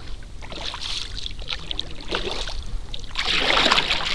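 Kayak paddling on calm water: scattered drips and small splashes from the paddle, then a louder swishing paddle stroke about three seconds in.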